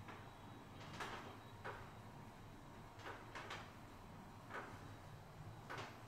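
A masseur's hands sliding and rubbing over skin, making soft, short swishes at irregular intervals, about one or two a second.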